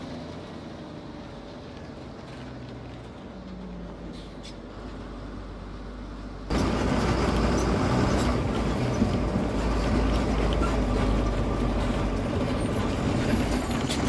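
Diesel MSRTC bus engine heard from inside the cab beside the driver: a steady, moderate hum while driving. About six and a half seconds in, the sound jumps abruptly to much louder engine and cabin noise with a heavy low rumble as the bus pulls into a bus stand.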